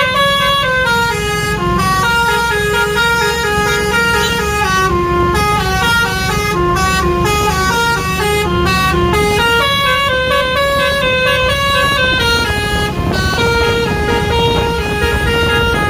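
Bus 'telolet' Basuri multi-tone musical horn playing a continuous melody, its notes stepping up and down several times a second, over a steady low rumble.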